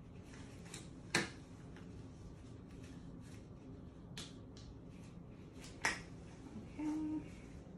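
Sterile gloves being pulled on and stretched over the hands, snapping against the skin: two sharp snaps, about a second in and just before six seconds, with fainter rustles and clicks between. A short low tone sounds about a second before the end.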